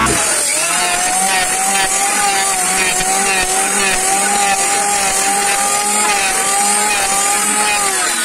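Electric power tool motor running steadily with a whine that wavers slightly in pitch, starting abruptly and stopping near the end.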